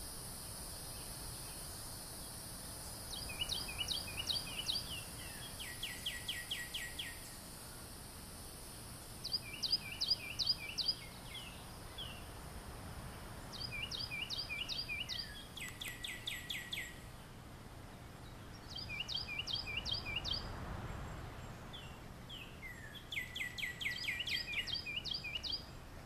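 A songbird singing: bouts of quick, sliding, repeated notes, each about a second or two long, coming back every few seconds. Under it runs a steady high hiss that fades out partway through, and a low background rumble.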